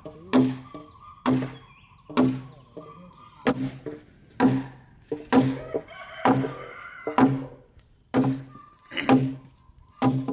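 Hammer blows on a timber beam, about eleven strikes at roughly one a second, driving a tenon into a mortise joint of the cabin frame. Each blow lands as a thunk with a brief low ring from the wood.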